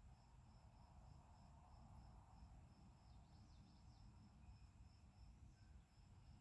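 Near silence with a faint cricket chirping steadily, about three chirps a second, over a low room hum.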